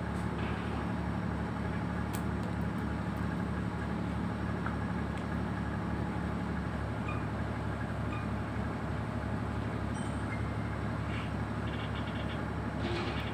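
A steady engine drone: a low, evenly pulsing hum with a constant pitch, running without change. A few faint clicks sound over it about two seconds in and near the end.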